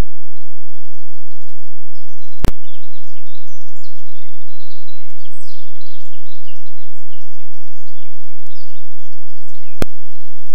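Woodland birds singing, many short chirps and trills, over a steady hiss from the trail camera's microphone. Two sharp clicks, about two and a half seconds in and near the end, where separate recordings are joined.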